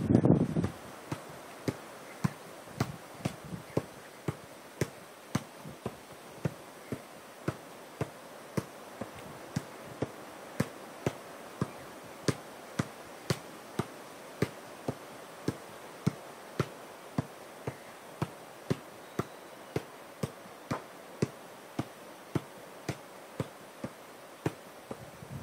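An Adidas Tango 12 football being juggled: a steady run of dull thuds as it bounces off the foot and thigh, about two to three touches a second, without a break. A brief louder rush of noise comes at the very start.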